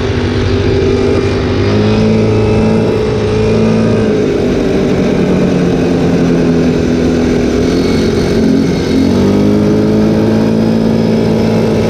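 ATV engine running steadily while riding, its pitch dropping about four seconds in and rising again with the throttle about nine seconds in.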